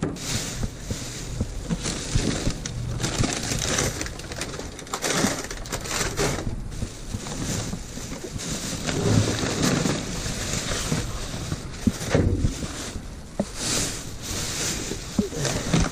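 Clear plastic trash bags rustling and crinkling as gloved hands pull them open and rummage through the packaged rubbish inside, with a few dull thuds.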